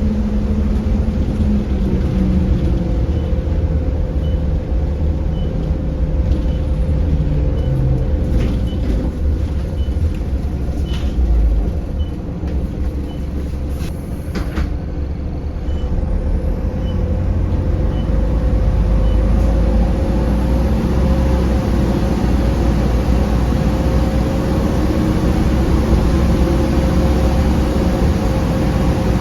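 Optare Solo M900 bus heard from inside: its diesel engine running under the cabin noise, with the indicator ticking about once a second for much of the first twenty seconds. There are short air hisses around the middle, typical of the air brakes, while the noise dips, and the engine picks up again in the second half.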